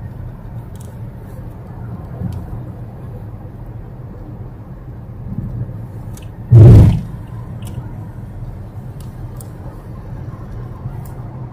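Steady low road and engine rumble inside a moving Toyota's cabin, with one short, loud thump a little past halfway.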